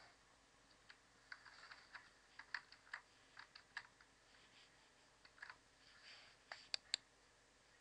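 Faint, irregular clicking of a computer keyboard and mouse, with a crisp pair of clicks near the end.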